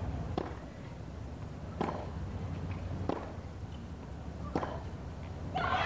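Tennis ball struck back and forth by racquets in a baseline rally: four sharp hits about a second and a half apart. A low murmur runs under the hits, and crowd noise rises just before the end.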